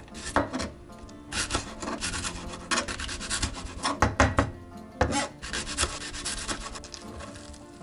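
Chef's knife slicing a Japanese long green onion into rounds on a plastic cutting board: a series of separate cuts, each ending in a tap of the blade on the board, with background music underneath.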